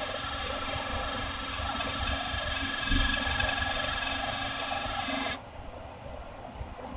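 A computer giving off a steady, high, buzzing whine of several tones that cuts off suddenly about five seconds in, leaving a lower background hum. The noise is intermittent, and the owner can't pin down its source but doesn't believe it is the fans.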